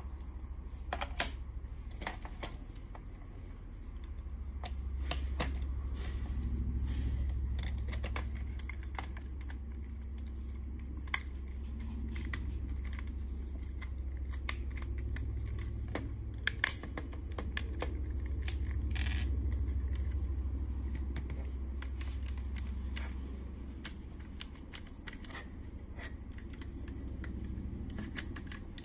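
Lego bricks and Technic parts being handled and pressed together: irregular sharp plastic clicks and snaps, over a steady low hum.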